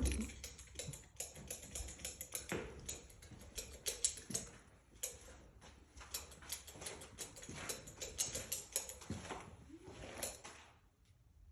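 Light, irregular taps and knocks, several a second, dying away about a second before the end.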